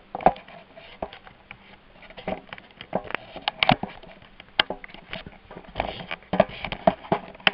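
Tissue or toilet paper being pulled off and handled: irregular rustling and crinkling with sharp crackles.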